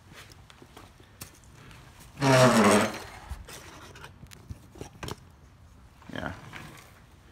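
Small clicks and scrapes of plastic parts as the air filter housing is pulled off a Briggs & Stratton 140cc OHV engine. A short spoken sound comes about two seconds in, louder than the handling, and a fainter one comes near the end.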